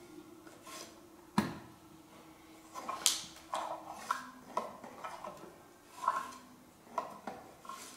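Scattered light clicks, taps and short scrapes of wooden pipe-organ action as a thin sandpaper-faced stick is drawn between the pallets and the Swell soundboard, cleaning debris off the pallets. There are sharp clicks about a second and a half in and again about three seconds in.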